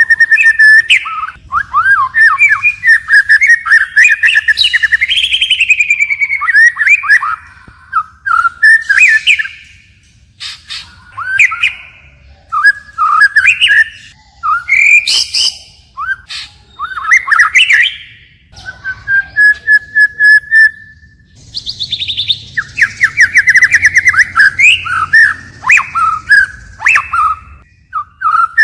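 White-rumped shama singing a long, varied song: loud whistled phrases, rapid trills and chattering notes, the phrase changing each time with short pauses between, and one held whistled note about two-thirds of the way through.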